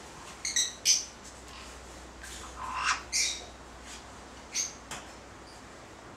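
Yellow-thighed caiques giving short, high-pitched squawks. A quick cluster comes in the first second, a longer call around three seconds in, and two brief ones near five seconds.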